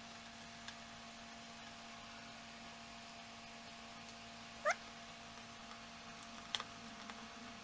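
Low steady hum in a quiet room. About two-thirds of the way through, one brief chirp rises quickly in pitch, and a sharp click follows soon after.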